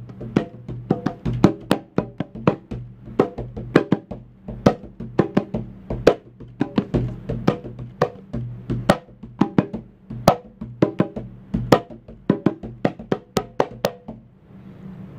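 Hand drums played with bare hands in a quick, loose improvised rhythm of several strikes a second, with accented louder hits. The drumming stops about a second before the end, leaving a soft rustle.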